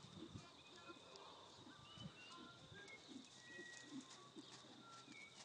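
Faint, soft hoofbeats of a horse moving on an arena's dirt, irregular low thuds, with small birds chirping in short high calls throughout.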